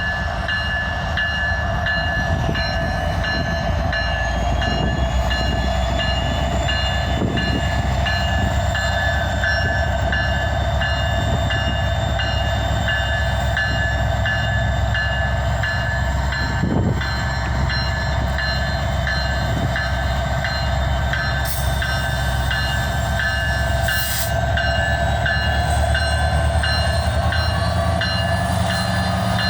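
Freight train starting up and rolling: a steady low rumble of diesel locomotives and moving cars, with several steady whining tones, one of them rising slowly in pitch as the train gathers speed. There are two brief hisses near the end.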